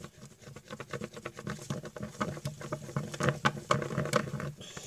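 Homemade shampoo-and-salt slime being squeezed and kneaded in the hands, making a dense run of small wet clicks and squelches that grow louder in the second half.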